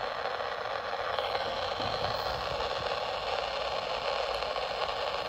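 Steady, even hiss, with a few faint clicks.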